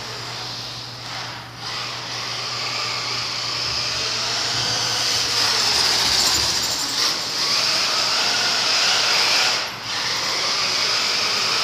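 Small electric RC car motor whining as the car drives, the pitch rising and falling with the throttle. The whine drops out briefly twice, once near the start and once near the end.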